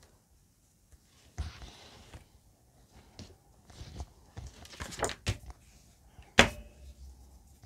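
Handling noise from crocheting: rustling and soft knocks as the yarn and the work are moved, with one sharp knock about six seconds in, the loudest sound.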